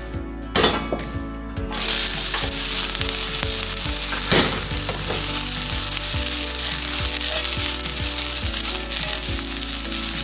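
Sliced white onion frying in hot sesame oil in a stainless steel pan: a steady sizzle that starts a couple of seconds in, after a knock, with one sharp clatter about four seconds in.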